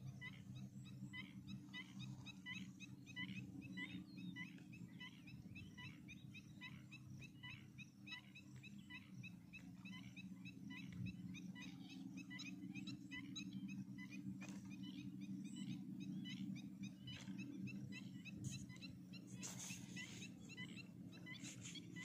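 Faint outdoor chorus of small animals, many short chirping calls repeating several times a second, over a steady low hum.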